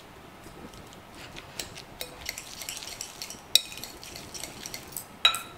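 A stainless wire potato masher stirring and pressing mashed kabocha squash with cream and sugar in a glass bowl: soft squelching with irregular clicks of the metal against the glass, the sharpest about three and a half seconds in and a short ringing clink near the end.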